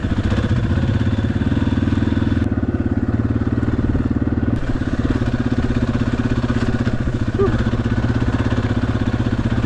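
Dirt bike engine running steadily while riding along a sandy trail. It is heard close up from the bike itself, with rapid even firing pulses and little change in pitch.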